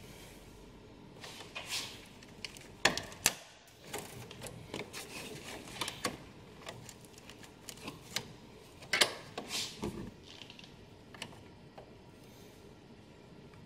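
Irregular plastic clicks and knocks as hands work among wiring and plastic parts in a car's engine bay, with the sharpest knocks near 3 seconds and around 9 seconds.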